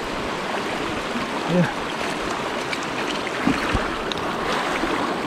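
Shallow mountain trout creek rushing over rocks: a steady hiss of flowing water, with a short knock about three and a half seconds in.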